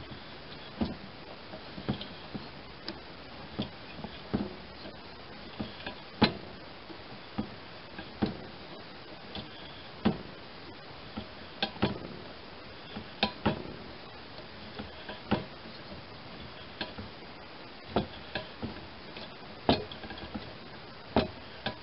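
Hand threading tool in its steel handle being worked back and forth to chase damaged 3/8-24 fine threads in steel: irregular sharp metallic clicks and ticks, about one every half second to second.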